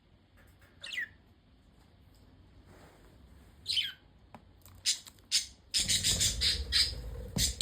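Pet budgerigars chirping: two single short falling chirps in the first few seconds, then a burst of rapid, busy chirping and squawks from about two seconds before the end.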